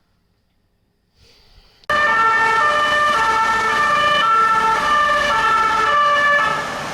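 Electronic siren wailing in alternating high and low tones over a hiss. It starts suddenly about two seconds in and stops shortly before the end, leaving the hiss.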